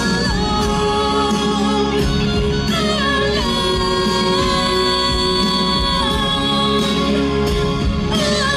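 Two voices singing a duet live through a stage PA over a backing track, with long held notes.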